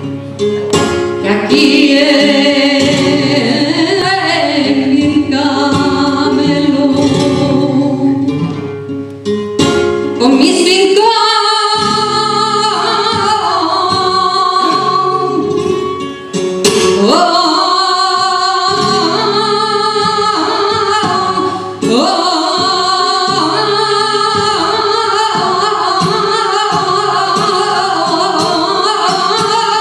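A female flamenco singer sings cante with flamenco guitar accompaniment, in long ornamented phrases of wavering held notes. The voice breaks off briefly three times and comes back in each time with an upward slide.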